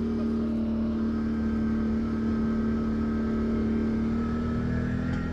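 ATV (quad) engine running at a steady cruising speed on a dirt track, its note rising slightly near the end.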